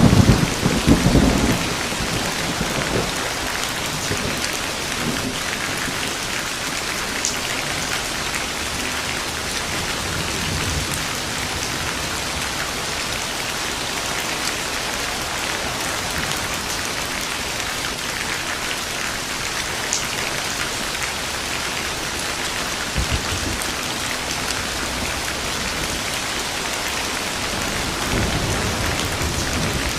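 Steady heavy rain falling, with a sharp thunderclap and rumble right at the start and fainter low thunder rumbles later on.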